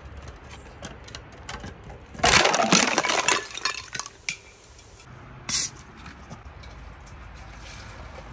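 Large glass bottle full of cola pushed down concrete steps: a few light knocks as it tumbles, then a loud crash of shattering glass about two seconds in, lasting about a second. A few scattered clinks of shards follow, and there is one more short sharp noise a couple of seconds later.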